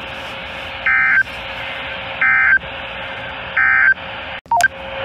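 Weather radio broadcast hiss carrying three short bursts of warbling digital data tones, about 1.3 seconds apart. These are SAME data bursts, which at this point typically mark the end of the flash flood warning message. A brief dropout with a couple of short tones follows near the end.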